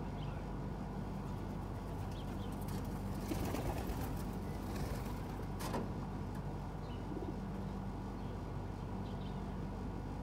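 Pigeons stirring: a brief rustle of feathers about three to five seconds in and a sharp tap near six seconds, over a steady low hum, with faint chirps of small birds.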